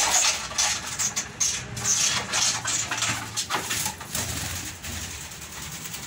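Cardboard pet carrier box rustling and scraping as it is opened, with a ringneck parakeet's wings flapping as it scrambles out. The sound is made of many short irregular strokes and grows fainter over the last couple of seconds.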